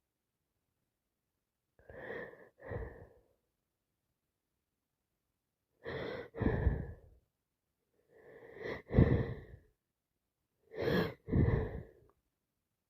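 A woman with a heavy head cold sneezing four times in a row, each sneeze a quick breath in followed by the explosive sneeze, the third the loudest.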